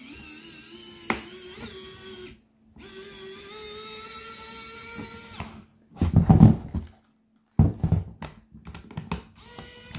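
Battery-powered precision electric screwdriver's small motor whining as it drives out plastic screws, its pitch creeping up slightly. It runs twice for a couple of seconds each. Knocks and handling noise of the plastic housing follow in the second half.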